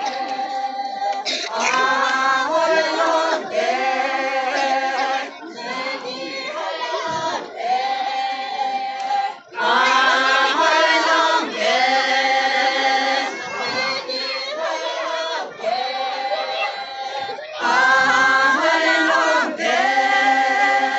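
A group of women singing a folk dance song together, unaccompanied, in sung phrases of a few seconds each with brief breaks between them.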